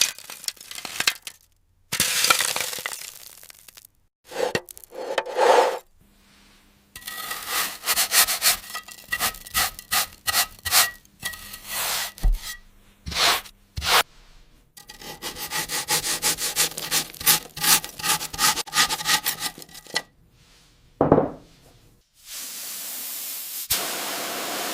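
Scraping and rubbing on rusty metal, in several short clips that start and stop abruptly: crackly scratching at first, then two long runs of rapid scratching strokes, a single swoosh, and a steady hiss near the end.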